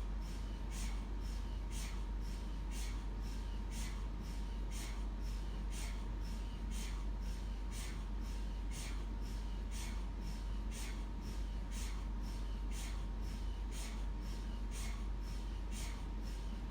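MRI scanner running a scan sequence: a steady rhythmic knocking of its gradient coils, about two knocks a second, over a constant low hum and a faint steady tone.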